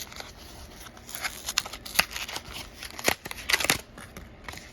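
Plastic-and-card blister pack being opened by hand: an irregular run of sharp clicks and crackles, loudest about three and a half seconds in.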